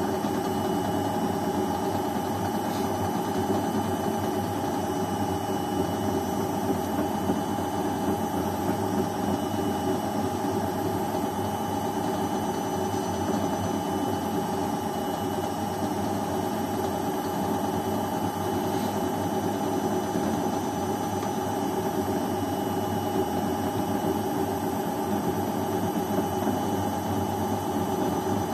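Beko front-loading washing machine running steadily: a constant motor whine over an even rushing noise, with no pauses or change in pace.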